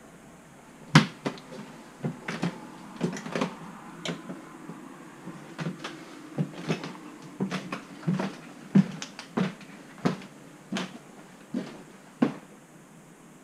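Footsteps climbing wooden stairs and onto a board floor: a run of sharp, uneven knocks, about one or two a second, the loudest about a second in.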